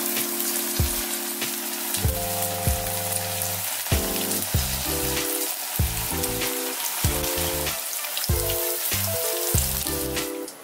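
Flour-coated tofu cubes deep-frying in hot oil, a steady sizzle full of small crackles. Background music with a bouncy, repeating beat plays over it, and the frying fades near the end.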